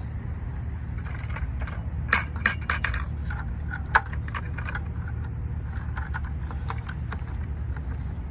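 Wind rumbling on the microphone, with scattered light clicks and clinks, the sharpest about two and four seconds in.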